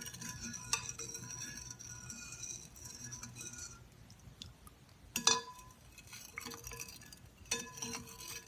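A spoon stirring in a bowl of hot Thai tea to dissolve the sugar, clinking against the side of the bowl now and then with short ringing clinks; the loudest comes about five seconds in.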